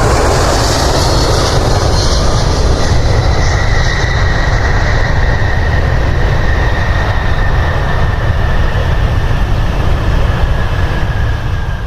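Jet airliner engines running loud: a steady roar under a high whine that slowly falls in pitch.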